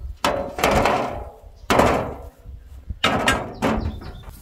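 Sheet-metal griddles and iron stands clanking against each other as they are handled and set down: about five sharp metallic knocks, each ringing briefly as it fades.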